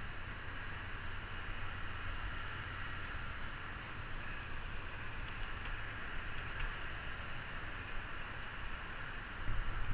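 Steady rushing noise of riding a bicycle: wind buffeting the helmet-mounted camera's microphone, under a hiss of traffic on the busy road alongside.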